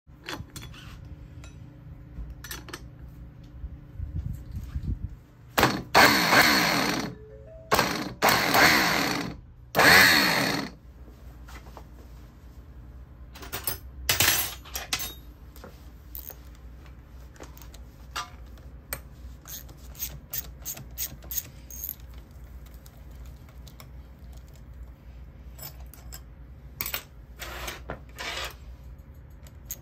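Metal clinks and ticks from hand tools working on a heavy starter motor clamped in a bench vise, broken by three loud bursts of noise, each about a second long, around six, eight and ten seconds in.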